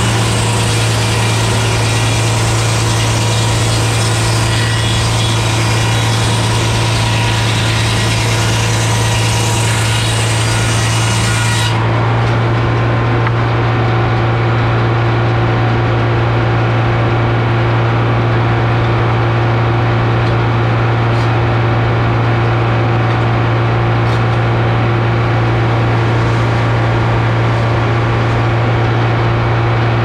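Frick sawmill's large circular saw blade cutting through an oak cant, with a loud rasping that stops abruptly about twelve seconds in. Under it and after it, the supercharged two-stroke GM Detroit 4-71 diesel that drives the mill runs steadily.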